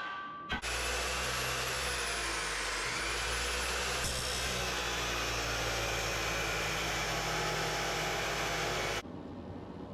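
Steady whirring roar of a motor-driven machine, starting abruptly about half a second in and cutting off sharply near the end.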